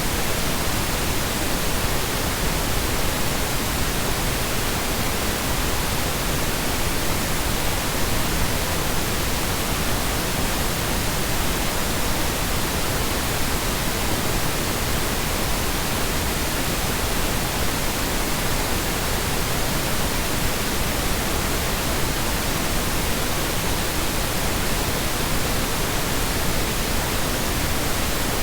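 Steady synthetic noise, a constant hiss that is as strong in the high pitches as in the low, with no rises, dips or other sounds.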